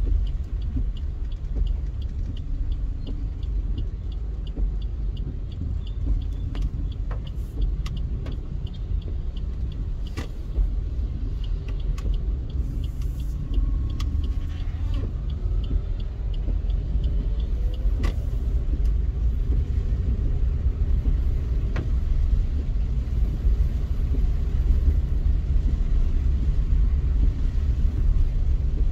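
Car driving in traffic, heard as a steady low rumble of engine and road noise. A light, regular ticking, about three a second, runs through the first eight seconds or so.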